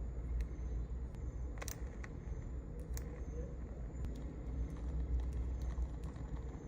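A few light, sharp clicks and taps of small items being handled for packing, over a steady low rumble.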